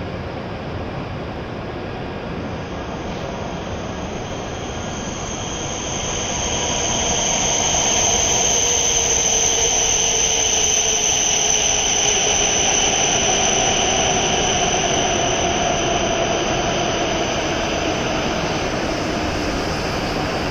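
E7-series Shinkansen train pulling into the platform and slowing. The rush and whine grow louder about six seconds in, with a high steady squeal above and a lower tone sliding down in pitch as the train decelerates.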